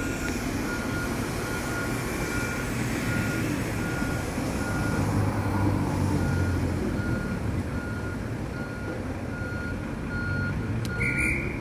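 A vehicle's reversing alarm beeping steadily, about once a second, over the low rumble of bus engines running. A car passes close by midway.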